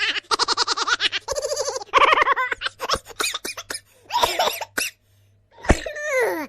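Silly cartoon-style laughing sound effect: a voice cackling in rapid pitched pulses, breaking into short choppy bursts, then a falling glide in pitch near the end.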